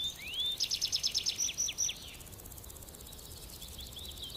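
A small bird chirping: a rising whistle, then a quick run of high notes and a few falling ones in the first two seconds, with fainter chirps again near the end.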